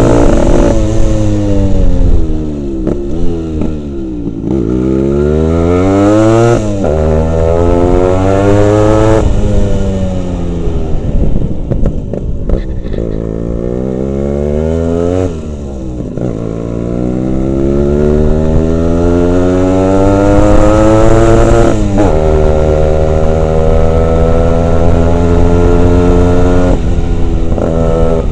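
Two-stroke single-cylinder Yamaha RX-series motorcycle engine heard from the saddle while riding, rising and falling in pitch with the throttle. Its note climbs, then drops sharply at each gear change, sinks away on a closed throttle, and holds fairly steady for the last few seconds.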